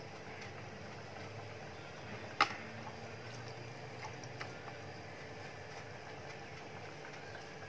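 Hands rolling marinated prawns in dry semolina in a steel bowl and setting them on a plate, over a steady low background hum. One sharp click about two and a half seconds in, and a few faint ticks around four seconds.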